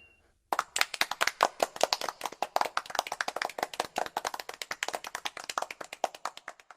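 Hands clapping: a small group applauding, a quick, uneven run of claps that starts about half a second in and stops abruptly near the end.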